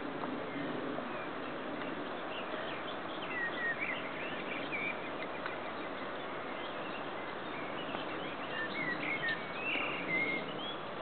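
Birds chirping in short, quick calls that slide up and down, in a flurry about three to five seconds in and again near the end, over a steady background hiss.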